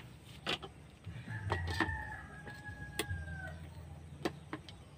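A rooster crowing: one long held call of about two seconds that falls in pitch at the end. A few sharp clicks sound along with it.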